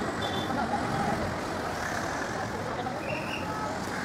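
Busy street traffic: a steady wash of passing vehicle noise, with a couple of brief high tones, near the start and about three seconds in.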